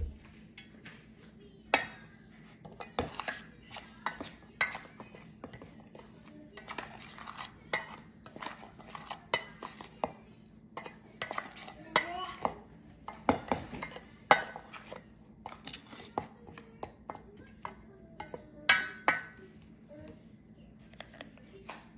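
Metal spoon stirring a dry ground pumpkin seed and spice mix in a stainless steel pan: repeated uneven clinks and scrapes of spoon on the pan's metal, with the gritty rustle of the powder between them.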